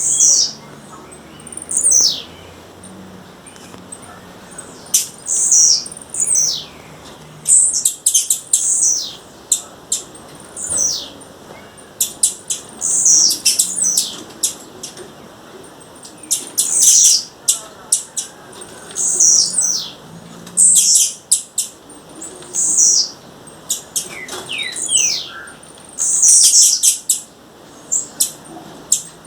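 Female blue-black grassquit (tiziu) calling: short, high, downward-sweeping chirps and quick bursts of sharp clicking notes, repeated about every one to two seconds.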